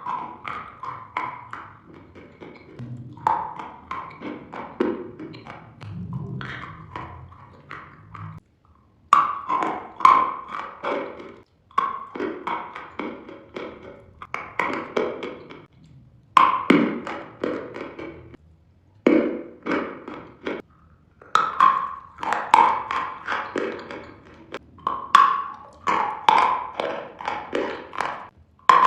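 Close-miked crunching and snapping of hard candy sticks being bitten and chewed, a quick run of sharp cracks and clicks. The run breaks off abruptly several times and restarts.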